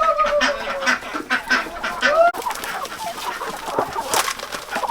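Chickens clucking, with a drawn-out arching hen call at the start and a shorter one about two seconds in, over a scatter of short clicks.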